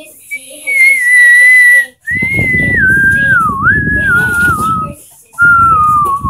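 A person whistling a wandering tune in three long notes. The first is held high. The second is longer and slides downward with a dip. The third falls slowly near the end, with a rushing noise under the last two.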